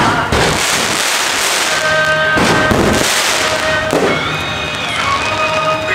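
Aerial fireworks bursting overhead in a dense, continuous crackle.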